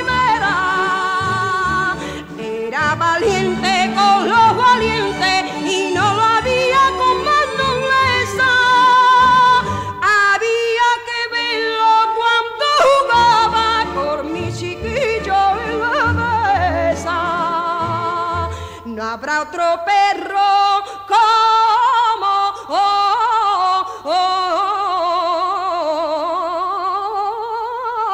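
Recorded Spanish copla song: a woman sings long, melismatic wavering lines with heavy vibrato over instrumental accompaniment. From about 19 seconds in, the accompaniment thins and the voice holds slow, sliding notes.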